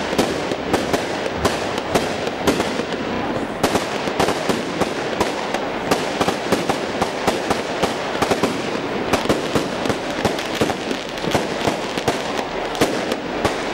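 Daytime aerial fireworks going off in a rapid, irregular string of sharp bangs, several a second, over continuous crackling.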